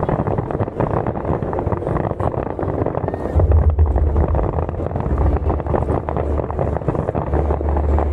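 Fireworks display bursting and crackling, with wind buffeting the microphone and crowd voices underneath; a heavy low rumble builds about three seconds in.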